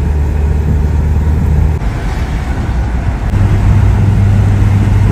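Loud, steady road and engine noise of a moving vehicle on a highway. Its low engine hum shifts up in pitch a little over three seconds in, and the noise cuts off suddenly at the end.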